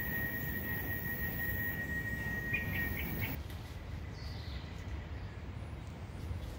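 Rainforest ambience: a steady high insect drone with a few short bird chirps about two and a half seconds in, both cutting off abruptly after about three seconds, over a constant low rumble on the microphone.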